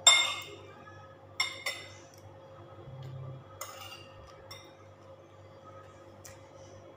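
Metal spoon and fork clinking against a ceramic plate while eating: one ringing clink right at the start, then a few lighter clinks at irregular intervals.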